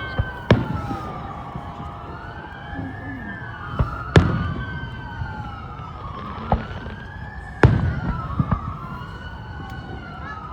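Emergency vehicle sirens wailing, two of them rising and falling out of step with each other, with scattered firework bangs. The loudest bangs come about four and seven and a half seconds in.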